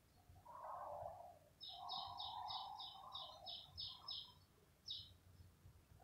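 A small bird chirping in a quick run of about ten short, high notes, roughly four a second, then one more after a brief pause. A softer, lower sound lies under the chirps.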